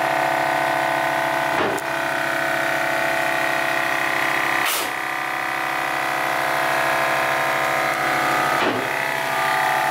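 Milwaukee M18 FUEL 2-gallon cordless compressor running, a steady hum from its motor and dual pump, with brief dips about two and five seconds in.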